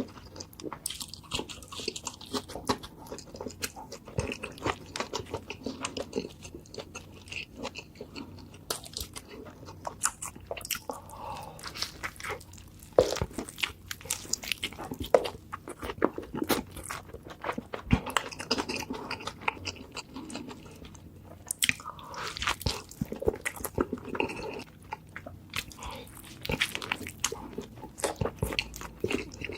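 A person biting and chewing a burger close to the microphone: wet chewing with crunchy bites and many irregular sharp smacks and clicks.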